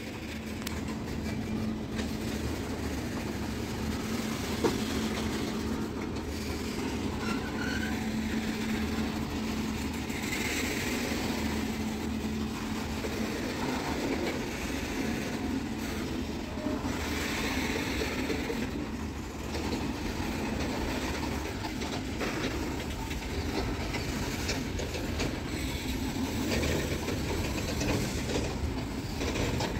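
A freight train's loaded, tarpaulin-covered open wagons rolling past close by, with a steady rumble of steel wheels on the rails.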